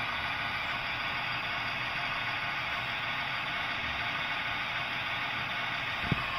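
ROCO model TEE trainset running along the track, its DCC sound decoder playing a steady diesel engine sound over the wheel rumble. A single sharp click about six seconds in.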